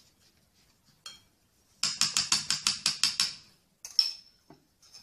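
Silicone spatula stirring oiled semolina in a ribbed glass bowl: a quick, even run of about a dozen scraping strokes, then a single sharp clink against the glass near the end.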